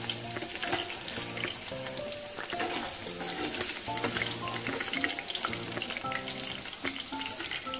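Fried fish pieces in hot oil in a kadai, a steady crackling sizzle, with a metal spatula scraping and turning them in the pan. Background music with a simple repeating tune plays underneath.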